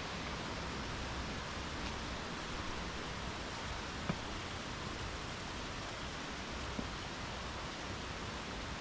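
Steady rushing of a mountain stream, an even wash of water noise, with two faint clicks partway through.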